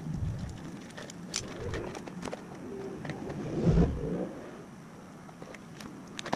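Dove cooing, with scattered light clicks and a louder low bump about four seconds in.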